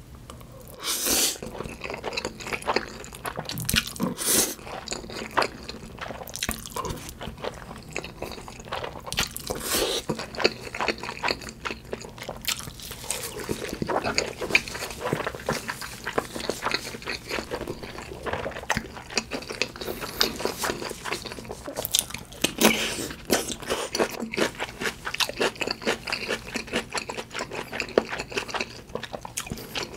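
Close-miked eating of instant black-bean noodles: wet chewing and smacking mouth sounds, with several louder slurps and bites among them.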